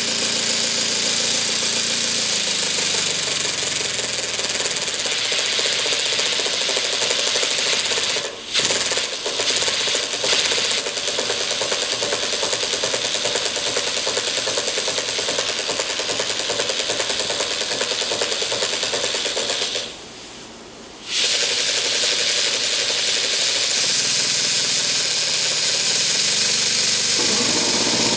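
Small twin-cylinder double-acting oscillating model steam engine running fast on compressed air, a steady hissing chuff and mechanical rattle. It slows over the first few seconds, falters briefly about eight seconds in, drops out for about a second around twenty seconds in, then picks up speed again.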